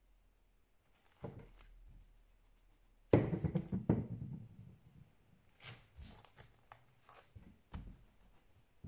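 Pen writing on spiral-notebook paper, with a dull thump about three seconds in, the loudest sound, and a few light knocks and rustles after it.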